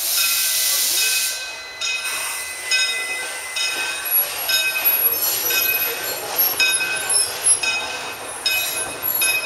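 Steam train moving off slowly: a loud hiss of steam for about the first two seconds, then short, high metallic squeals repeating about every half second as the wheels roll on the rails.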